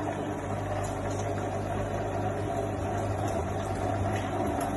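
Vitamix blender motor running steadily on low speed with the lid off, blending vegetable soup while more is poured into the jar.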